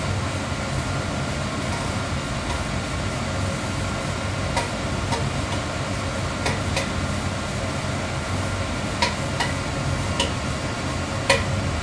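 Oil furnace burner running steadily after start-up, with scattered sharp crackles and pops from about halfway through. The owner believes the crackling comes from the furnace heating up from being fairly cold.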